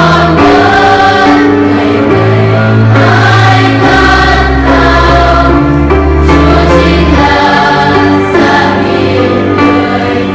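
Children's choir singing a Vietnamese Catholic hymn in parts, over an instrumental accompaniment holding long bass notes that change every second or two.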